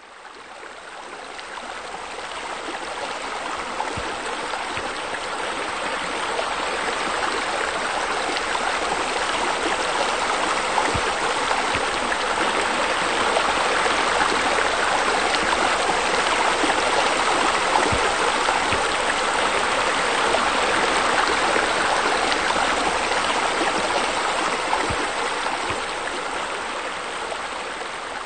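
Steady rush of running, splashing water, fading in at the start and tapering off near the end.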